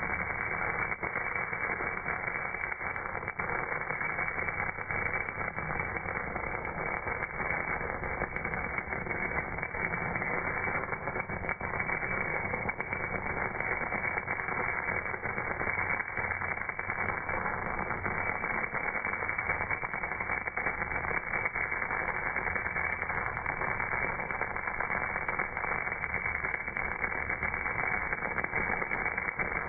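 MAG welding arc on a casting, its crackle and sputter slowed down into a dull, steady rushing noise with no high end.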